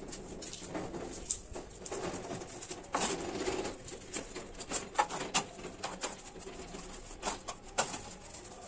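Small steel trowel scraping through and spreading a bed of sand-cement mortar on a concrete platform, with sharp clicks as the blade taps and knocks in the mix.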